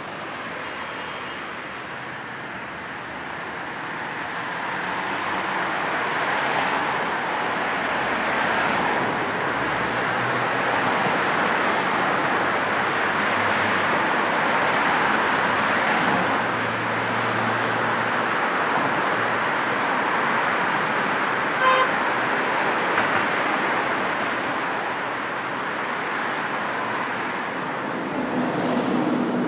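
City street traffic: a steady rush of passing cars that swells over the first several seconds and then eases a little. A short car horn toot sounds about two-thirds of the way through.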